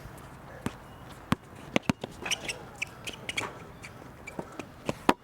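A basketball bouncing on an outdoor court during play: a handful of sharp, irregular knocks, with a few short high chirps in between.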